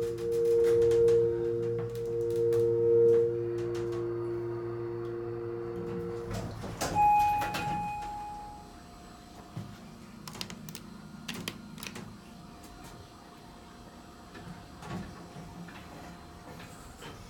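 Otis elevator car humming with two steady tones while it runs; the hum cuts off about six seconds in as the car stops. The doors then slide open and a short electronic beep sounds, followed by a faint steady tone and a few light clicks.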